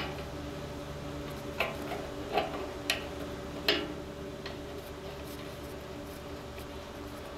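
A handful of sharp metallic clicks and taps as the brass fitting of a propane emergency shutoff valve is turned by hand onto its taped threads, over a steady low hum.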